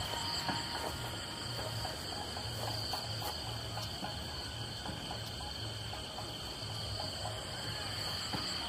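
Crickets trilling steadily, two unbroken high tones, over a low rushing background of river water.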